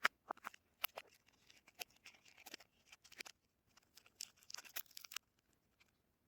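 Soap packaging being unwrapped by hand: a run of crisp crinkles and snaps of paper or plastic wrapping, stopping about five seconds in.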